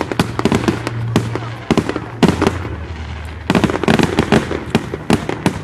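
Fireworks going off: a rapid, irregular run of sharp bangs and crackles that come in clusters with short lulls between them.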